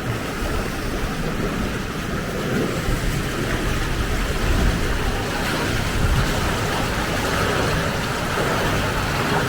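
Steady rush and churn of water flowing through an Archimedes screw hydro generator, a constant dense wash with a deep rumble underneath.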